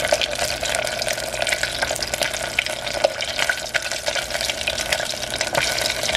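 Hot oil sizzling steadily around a single battered jalapeño popper ball deep-frying in a pot, with many small crackles and pops. The sizzle is the sign that the oil is up to frying temperature.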